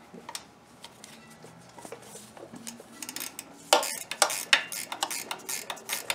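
A 10 mm wrench clinking and clicking against the metal oil drain tube fitting on a mower engine as the fitting is worked loose. A few light clicks at first, then about halfway through a run of sharper metal clicks, about three a second.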